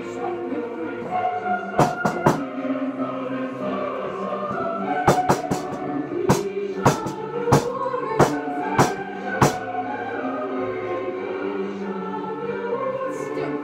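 Choir music playing, with a series of sharp knocks cutting through it: a few close together around two and five seconds in, then about one every two-thirds of a second until near ten seconds.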